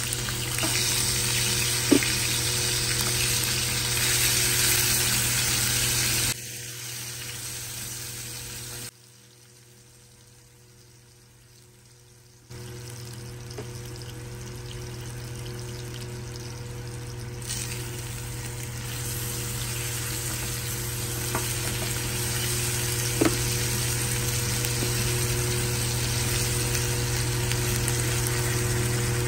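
Masala-coated fish pieces sizzling as they shallow-fry in hot oil in a nonstick frying pan, with two sharp clicks of the spatula against the pan. The sizzle drops about six seconds in and cuts out almost entirely for about three seconds before coming back.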